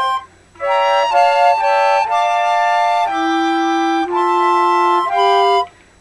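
Flute quartet of four layered flute parts played by one flautist, holding chords that change every second or so. Short breaks come just after the start and again just before the end.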